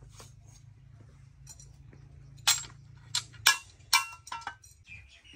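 Steel hand auger clinking: five or six sharp metallic clinks with a short ring, starting about two and a half seconds in. They come as the auger is lifted out of the bore and soil is cleared from its bit.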